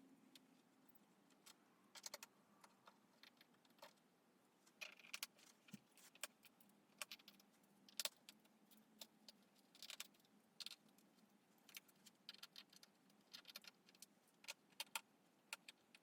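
Faint, irregular small metallic clicks and ticks of a Phillips screwdriver working tiny screws out of a laptop's bottom case, with the small screws clinking as they are handled.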